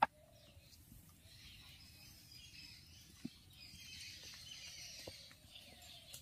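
Faint outdoor ambience with birds chirping, opened by a sharp click and with a couple of soft knocks later on.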